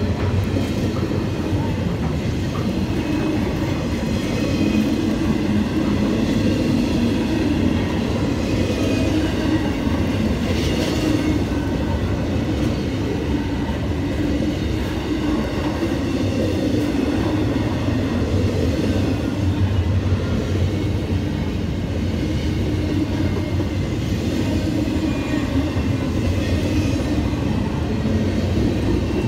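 Norfolk Southern intermodal train's double-stack container well cars rolling steadily past, their wheels running on the rails with a continuous, even rumble.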